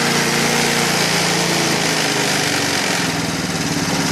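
Lawnmower's small engine running loudly, then dropping in speed about two to three seconds in to a slower, lumpy idle.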